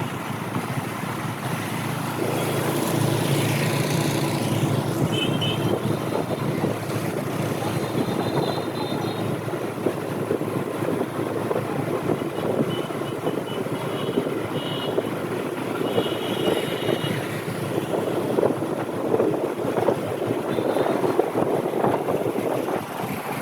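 Motorbike engine running as it rides, under heavy wind buffeting the microphone in a storm.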